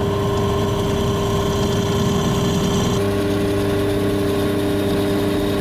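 A 375-watt benchtop pillar drill running, its bit cutting into aluminium plate, with a steady motor hum. The hum's pitch shifts abruptly about three seconds in.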